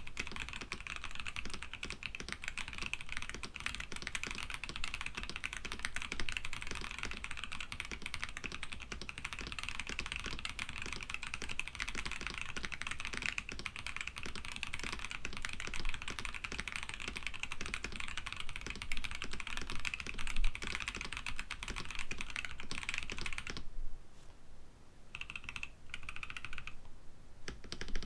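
Fast, steady typing on a KBD67 Lite mechanical keyboard with Boba U4T tactile switches, their rails lubed and springs greased. The keystrokes slow to a few separate presses near the end.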